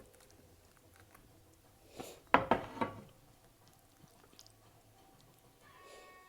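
Wet, squishy eating sounds: a brief burst of smacking and chewing on fufu with vegetable soup a little over two seconds in, otherwise faint.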